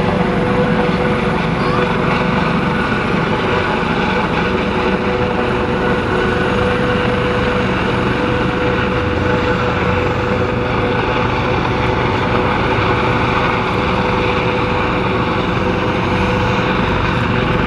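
Helicopter running steadily, a continuous loud engine-and-rotor noise with a steady whine.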